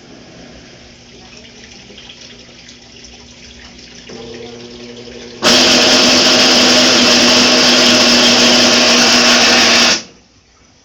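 Brastemp Ative 9 kg washing machine in its spin cycle: a motor hum builds up steadily, then about five seconds in a very loud, harsh noise breaks in for about four seconds and cuts off abruptly. It is the horrible noise this machine makes when spinning, a sign of a fault.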